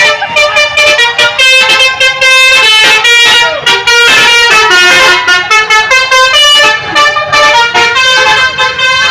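Indonesian bus 'telolet' horn, a multi-tone musical horn, playing a quick tune of short notes, with a few longer held notes in the middle.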